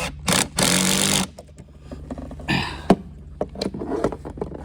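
Screws being driven back into a boat's shore power outlet in a cramped space: a brief loud rush of noise near the start, then scattered clicks and knocks of the screws and tool, over a steady low hum.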